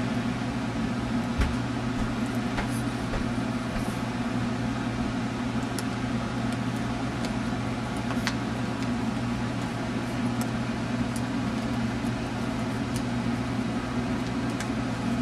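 A steady low mechanical hum, like a running motor or fan, unchanged throughout, with a few faint light ticks over it.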